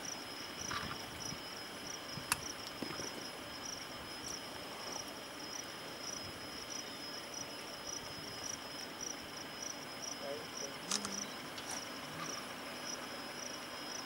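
Insects chirping steadily in a high, even pulse of about three chirps a second over faint outdoor background noise, broken by a couple of short sharp clicks.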